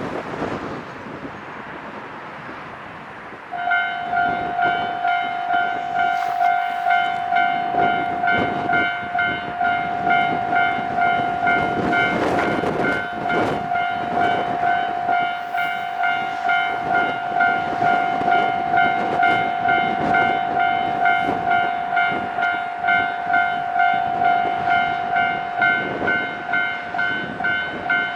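Japanese railway level-crossing warning alarm starts abruptly about three and a half seconds in. It rings in even pulses, about three every two seconds, over gusty wind noise.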